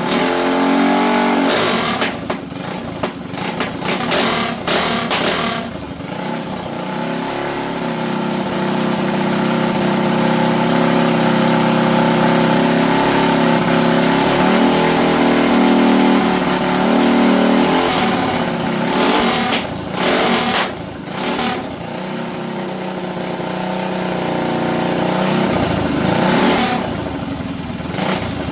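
Predator minibike engine running unevenly, its speed rising and falling with several brief dips, with a carburetor that the owner finds is flooding from a float problem.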